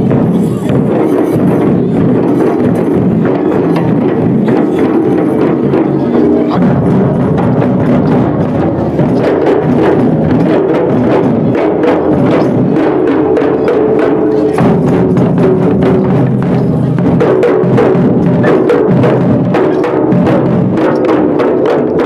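A troupe of drummers playing many large double-headed barrel drums together, a loud continuous rhythm of strokes. Crowd voices mix in underneath.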